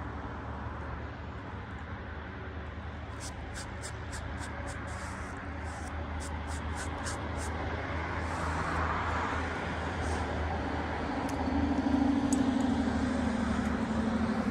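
A steady engine hum that swells louder in the last few seconds, with a quick run of light clicks a few seconds in.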